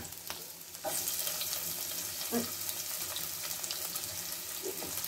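Chopped onions hitting hot oil with frying cumin seeds: the sizzle jumps up loudly about a second in, then runs steady with small crackles.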